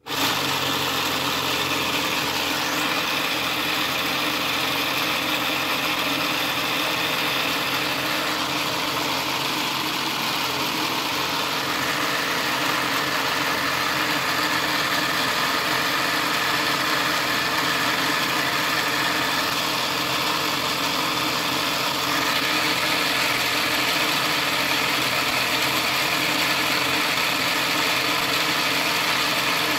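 Motor-driven LEGO model of a Toyota 4A-GE engine running: a steady mechanical whirring and clatter of plastic gears, timing belt and moving parts, starting abruptly as it is switched on at the battery box. It runs a little louder after about 22 seconds.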